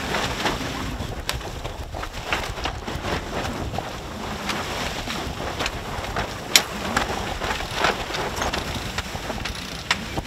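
A sailboat under sail in a breeze: wind on the microphone and water rushing along the hull, with scattered sharp knocks and slaps, the loudest about six and a half seconds in.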